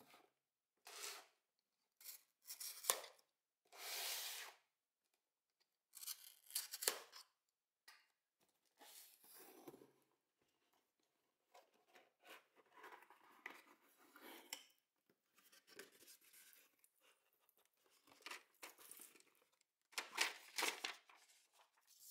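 Cardboard shipping box being opened by hand: a string of short tearing, scraping and rustling noises as packing tape is cut and pulled away and the cardboard flaps and inserts are handled. The noises are loudest about three seconds in and again near the end.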